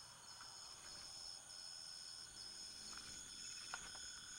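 Faint chorus of crickets: a steady high-pitched trill that breaks off and resumes about every half second, with a few light clicks near the end.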